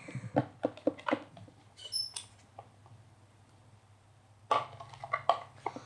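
Spatula stirring a runny mix of water glue and body lotion in a bowl: scattered light clicks and wet squelches, with a short high squeak about two seconds in.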